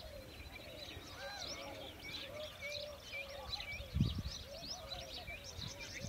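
Many birds chirping and calling over one another, a morning chorus of short high chirps and trills, with lower repeated calls beneath. A brief low thump comes about two-thirds of the way through.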